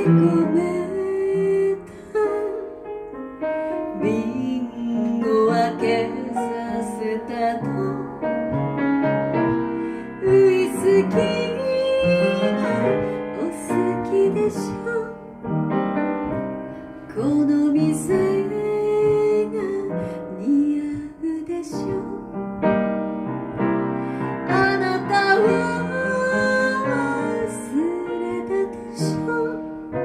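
A woman singing a slow Japanese pop ballad with piano accompaniment, performed live.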